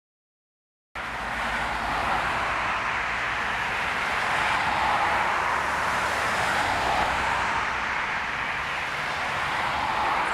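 Road traffic passing on a highway: a steady tyre hiss that swells and eases as cars go by, cutting in suddenly about a second in.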